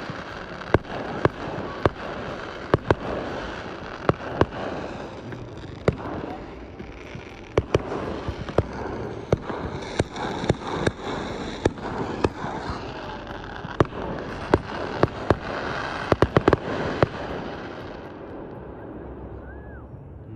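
Fireworks display: sharp bangs going off at irregular intervals, several a second at times. There is a quick run of bangs near the end, then the bursts ease off.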